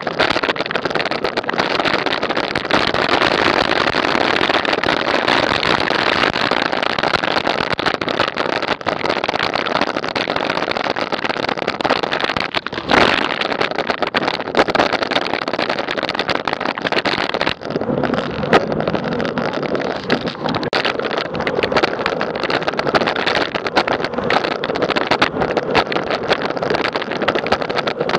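Wind rushing over a bike-mounted action camera's microphone together with road rumble from the moving bicycle, a steady loud noise with small jolts and one sharp knock about halfway through.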